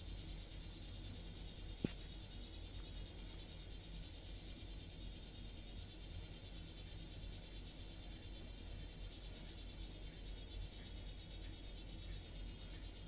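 A continuous high-pitched trilling chorus of small animals, even and unbroken, with one sharp click about two seconds in.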